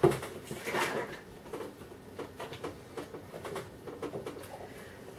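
Cardboard milk carton being handled and poured into a drinking glass: a knock at the start, a brief scrape about a second in, then faint small ticks and soft pouring.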